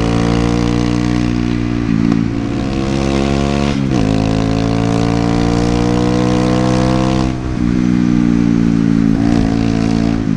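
Honda CBR125's single-cylinder four-stroke engine pulling under load. Its note climbs steadily, then drops sharply at each of about four upshifts before climbing again. Wind rush over the helmet camera runs underneath.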